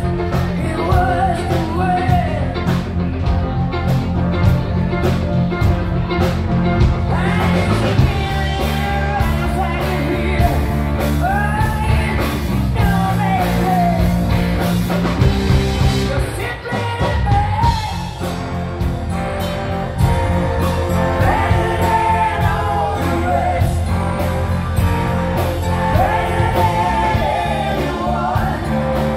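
Live rock band playing: a woman sings lead over electric bass, electric guitar and a drum kit.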